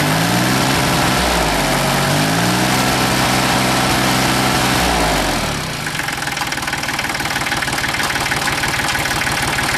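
Massey Ferguson 1010 compact tractor's three-cylinder diesel engine running. Its pitch dips and climbs back in the first few seconds, then drops to a lower, quieter idle with a steady clatter about five and a half seconds in.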